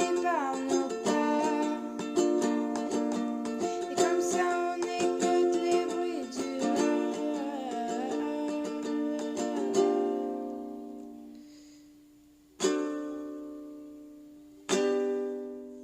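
Ukulele playing the end of a song: steady picking and strumming for about ten seconds, then a chord left to ring out and fade. Two final single strums follow, each ringing down.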